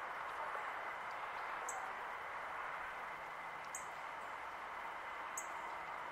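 Steady rush of fast-flowing river water, with a bird giving three short, high chirps about two seconds apart.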